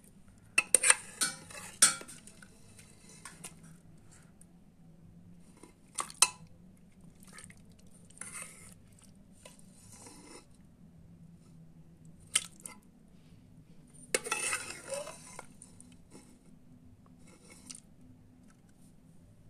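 Steel ladle stirring thick pork leg curry in a metal pot: scattered clinks and scrapes of metal on metal. There is a cluster of clinks about a second in, single knocks later, and a longer scrape around fourteen seconds in.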